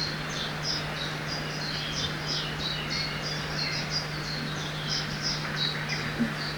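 Forest ambience by a river: many small birds chirping in quick, overlapping short notes, several a second, over the even rush of flowing water and a steady low hum.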